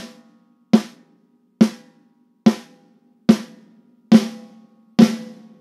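Recorded snare drum hits, close-miked with a single inexpensive CAD microphone. The hits come evenly, seven of them about one every 0.85 s, each with a ringing tone. From about three seconds in, reverb is brought in on a parallel send, and each hit gets a longer, thicker tail.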